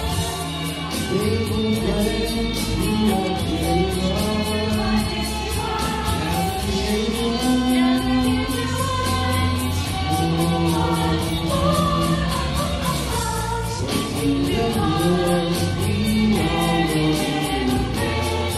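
A group of men and women singing a Christmas song together over instrumental backing with a steady beat.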